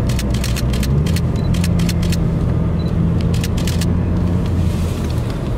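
Steady engine and road drone inside a moving car, with a quick, irregular run of sharp clicks over the first few seconds.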